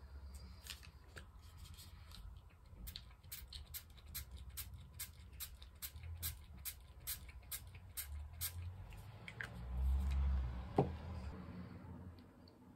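Small plastic art supplies handled at a plastic paint palette: a quick run of light clicks, about three or four a second, then a dull knock and a single sharper click near the end.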